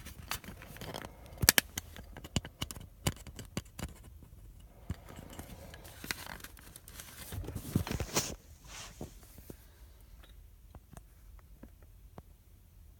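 Plastic clicks and scrapes as a car window switch is worked against its retaining tabs to free it from the door trim: a run of sharp clicks over the first few seconds, two longer scraping rasps in the middle, then only scattered light ticks.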